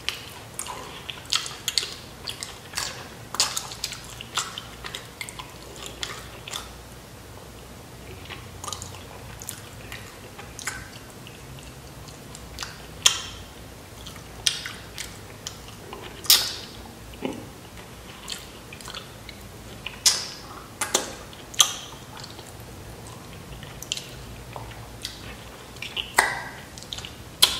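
Close-miked chewing of loaded nachos with melted cheese and meat, full of irregular wet smacks and clicks, a few of them much sharper than the rest.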